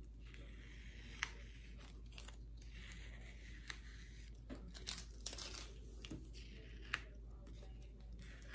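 Masking tape being peeled off paper, a faint tearing and crinkling with a few soft ticks.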